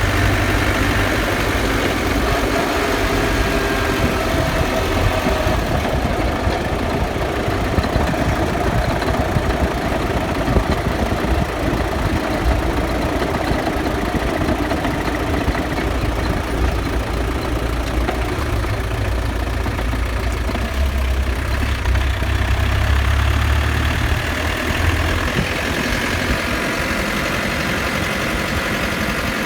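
Land Rover Defender running, a steady low drivetrain rumble with faint whining tones above it; the low rumble swells about two-thirds of the way through. The noise is the differential whine, rattle and grinding that the owner has had since lifting the vehicle.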